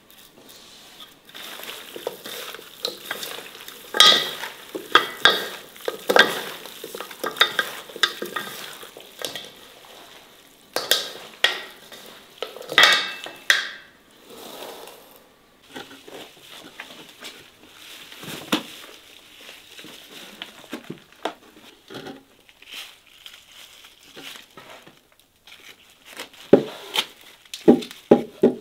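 Hands tossing and mixing raw chicken pieces with spices in an enamel bowl: irregular wet squelching and rustling, loudest in the first half. Later, quieter rustling with a few sharp knocks near the end.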